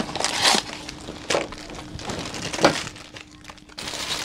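Foil mystery-figure blind bags being handled and torn open, giving about three short crinkling rustles over a couple of seconds.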